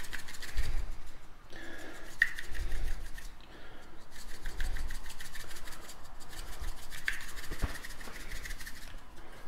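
Table salt shaken from a shaker onto scored pork rind, with fingers working on the skin: a fast, even scratchy rasping with a couple of short pauses.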